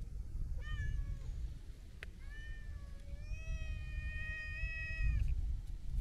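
Long-haired brown tabby-and-white cat meowing three times: a short falling meow, a brief one, then a long drawn-out meow lasting about two seconds.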